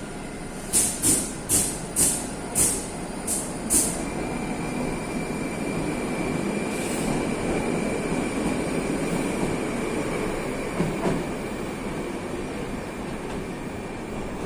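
Moscow metro train running, heard from inside the car: a steady running noise with seven sharp loud clacks in the first four seconds, then a steady high whine from about four seconds in.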